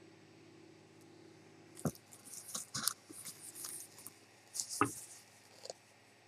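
Handling noises: a run of small clicks, taps and rustles, with two sharper knocks about three seconds apart.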